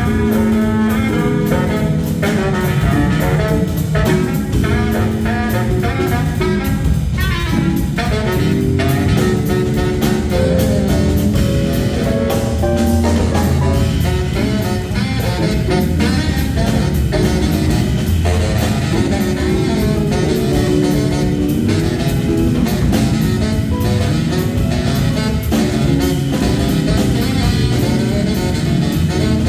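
Small jazz combo playing steadily: a saxophone line over a drum kit with cymbals.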